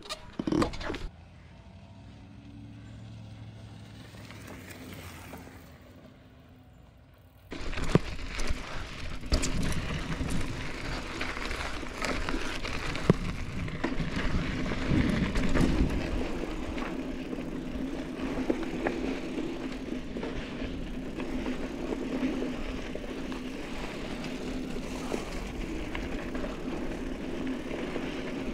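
Mountain bike riding a dirt trail: steady tyre rolling noise with a constant hum and many small knocks and rattles. It starts suddenly about seven seconds in, after a couple of knocks and a quieter low hum.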